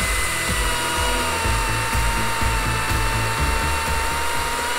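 STIHL MSA 220 C battery chainsaw cutting through a log of Australian hardwood: the electric motor holds a steady high whine over the noise of the chain in the wood.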